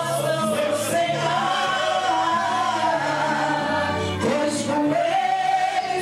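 A man singing a gospel song into a handheld microphone through the church PA, with instrumental accompaniment holding low bass notes beneath the voice.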